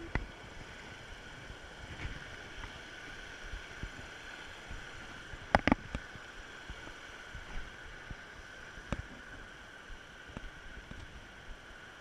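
River water rushing over rocks, a steady rush, with a few sharp clicks, the loudest pair about halfway through.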